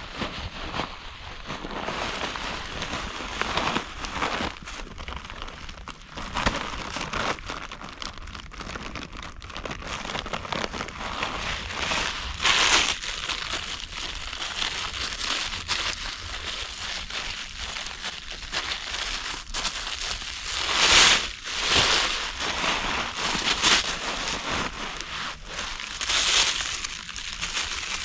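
Irregular dry crinkling and crunching rustles that keep going, with louder crunches near the middle and in the last third.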